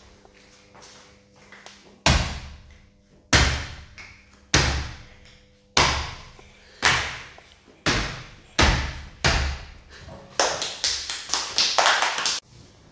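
A child frog-jumping on a hard tiled floor: eight sharp slapping landings, about one a second, each ringing briefly in the room. Then a couple of seconds of quick hand clapping by children, which stops abruptly.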